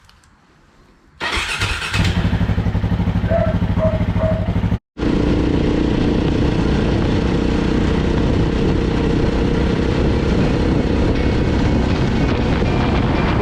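Motorcycle engine starts up about a second in and settles into a steady run. After a brief cut near five seconds, the motorcycle is heard running steadily with a wide noisy rush over the engine.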